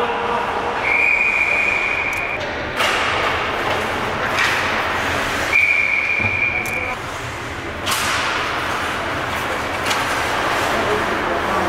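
Two long, steady, high referee's whistle blasts a few seconds apart stop play in an ice hockey game. Between them come several sharp knocks of sticks and puck against the boards.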